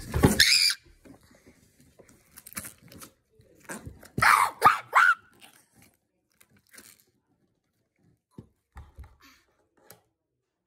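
Noise putty pressed and pushed into its plastic tub, squelching out short rasping, fart-like noises. There is a loud one at the start and another about four seconds in, then a few faint pops.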